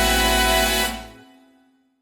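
Recorded carnival song ending on a held final chord that cuts off about a second in, a few tones ringing out briefly before silence.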